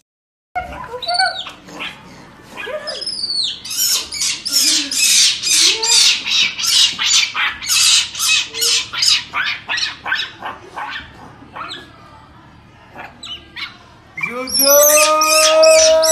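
Pet monkey squeaking excitedly while being hugged, a fast run of sharp, high-pitched squeaks, two to three a second, that dies away. Near the end a louder, longer, steadily pitched cry starts.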